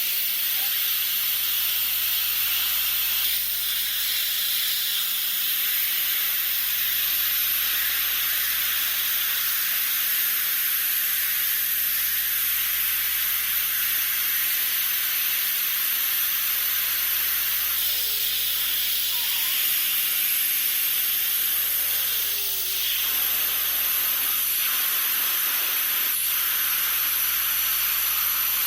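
Air escaping under pressure: a steady, high hiss with no let-up.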